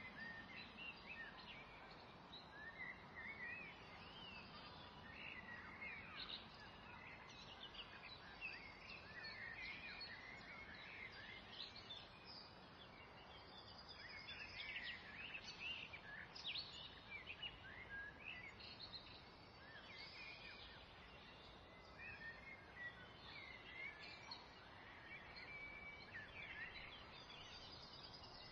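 Faint birdsong: small birds chirping continually over a low steady hiss.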